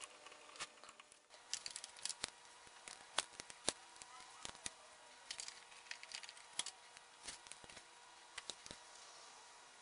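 Small metal clicks and light scrapes, irregular and faint, from a screw being turned in by hand through a bracket into a threaded hole in a motorcycle frame.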